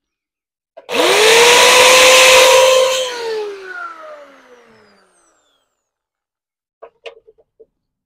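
Electric grinder starting up and grinding a groove into a steel bumper bar for about two seconds with a loud hissing noise, then switched off, its whine falling as it winds down. A few light clicks near the end.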